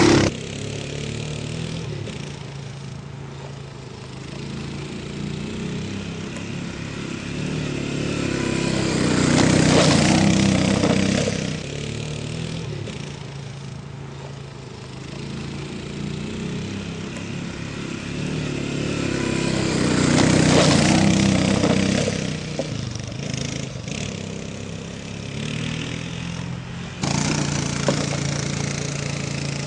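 Four-wheeler ATV engine running, swelling louder and bending in pitch twice as it sweeps past, then jumping suddenly louder near the end.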